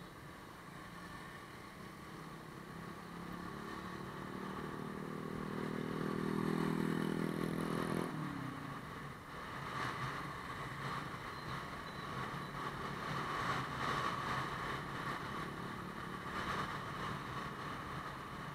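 Motorbike engine running on the move, its note growing louder and then cutting off suddenly about eight seconds in, followed by steady wind and road rush.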